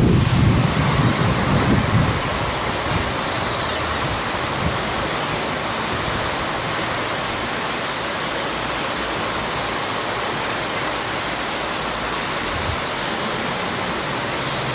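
Steady rain, with the tail of a low thunder rumble dying away in the first two seconds.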